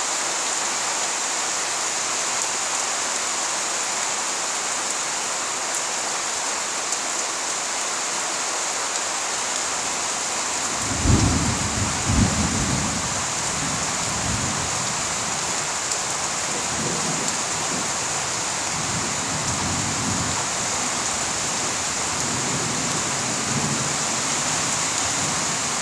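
Steady rain hissing, with thunder starting about eleven seconds in: two loud cracks a second apart, then a low rolling rumble.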